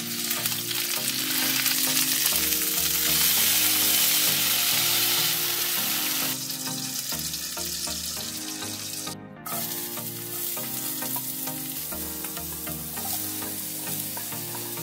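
Tanigue (Spanish mackerel) steaks sizzling in hot oil in a frying pan, loudest for the first six seconds or so, then a quieter sizzle, over background music.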